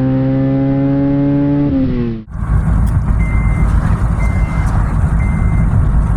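Car engine pulling hard, its pitch rising steadily and then dropping near the two-second mark, before the sound cuts off abruptly. A heavy low rumble follows, with a short high beep repeating about once a second.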